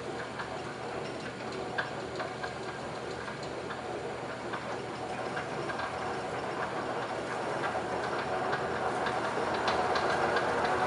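DoAll 3612-H vertical band saw running with no workpiece: a steady mechanical hum from the machine and blade, with scattered light ticks, growing gradually louder over the second half.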